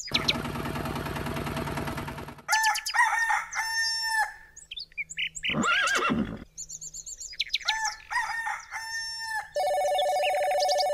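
A string of dubbed farm sound effects: birds chirping and whistling in short bursts, a rooster crowing, then a steady electronic ringing like a telephone starting about a second and a half before the end.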